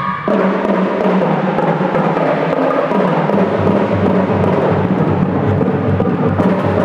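Marching percussion ensemble playing: snare and tenor drums with hand cymbals in dense, fast drumming. About three seconds in, a low, evenly repeated beat joins underneath.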